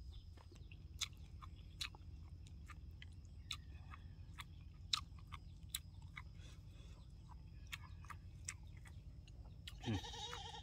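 Close-up chewing of a man eating spoonfuls of lap tao, a wet Lao algae salad, with sharp mouth clicks scattered throughout. A short voiced sound comes near the end.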